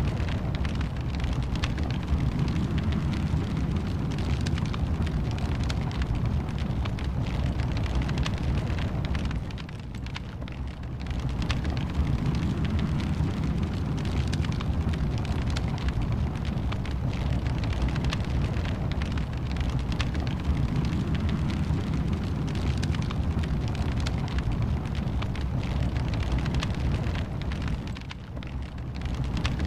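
Wood fire crackling and popping over a steady low rumble, with brief lulls about a third of the way in and again near the end.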